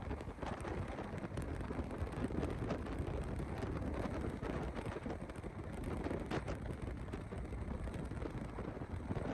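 Wind buffeting the camera microphone while riding on a motor scooter, with road and engine rumble underneath, steady throughout.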